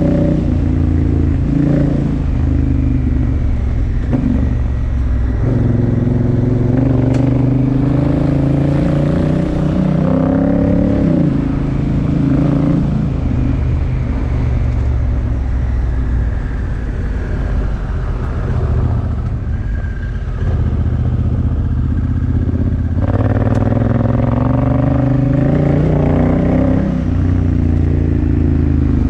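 Honda Africa Twin Adventure Sports' parallel-twin engine under way on a gravel track. Its pitch climbs and drops several times with throttle and gear changes, with a lower-revving, quieter stretch in the middle.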